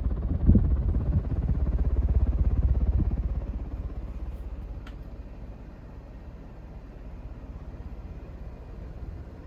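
Air moving off a running 42-inch Hampton Bay Grayton ceiling fan, buffeting the microphone as a low rumble that is strong for the first three seconds and then eases off, with a single thump about half a second in.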